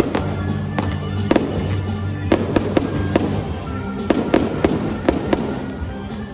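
Fireworks going off in an irregular run of sharp bangs, two or three a second, over music with a steady bass line.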